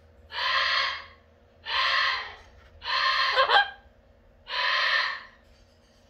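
Double yellow-headed Amazon parrot calling: four loud squawks in a regular series, about one every second and a half, the third ending in a quick pitch slide.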